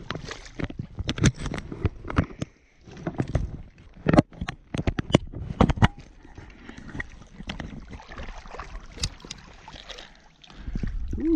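Water splashing and sloshing close to the microphone as a trout is handled in a landing net at the water's edge, with a run of sharp knocks and clicks in the first half. Near the end, wind rumbles on the microphone.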